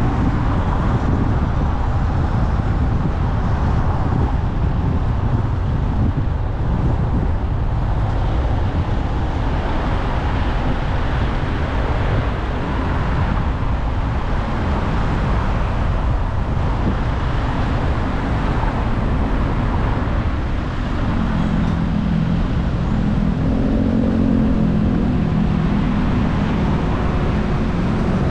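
Steady road and traffic noise of a car driving in city traffic, with a constant low rumble. In the last third a steady low engine drone joins in.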